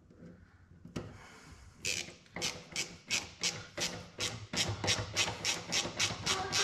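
A self-tapping sheet metal screw being turned by hand into the metal-cased blade-shaft oil seal of a Walker mower deck gearbox. About two seconds in, short grating strokes begin and keep up an even rhythm of about four a second.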